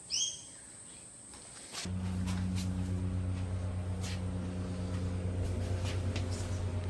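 A bird chirps once at the start. About two seconds in, a machine starts up with a steady low hum at a constant pitch that keeps going, with a few faint clicks over it.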